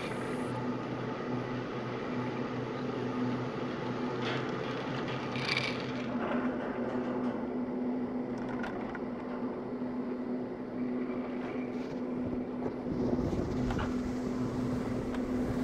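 T-bar ski lift running, heard while riding it: a steady hum from the moving haul rope and hanger over a rushing noise, with a few light clicks. The hum fades near the end.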